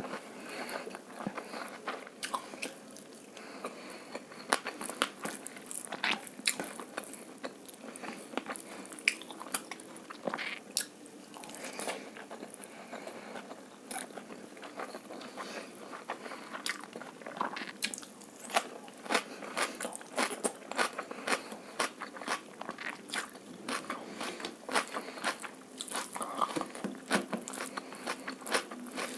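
Close-up eating sounds: chewing egg fried rice and chilli chicken, with many small irregular crunches and wet clicks of the mouth.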